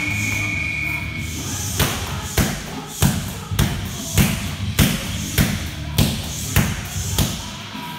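Kicks landing on hand-held kickboxing pads: about ten sharp smacks in a steady rhythm, nearly two a second, starting about two seconds in.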